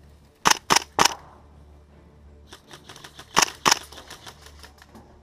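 Gas blowback airsoft rifle, a WE HK416 open-bolt, firing single shots: three quick sharp cracks about a second in, then two more around three and a half seconds, with fainter ticks in between.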